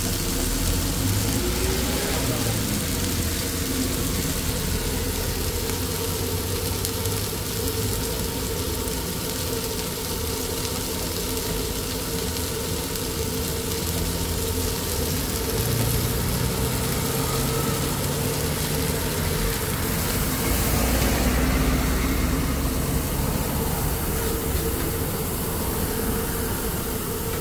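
Steady mechanical hum with a hiss over it, like running machinery. A lower drone joins in for a few seconds twice along the way.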